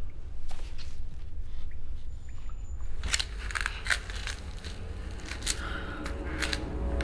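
Irregular crackling and clicking over a steady low hum, sparse at first and much denser from about three seconds in.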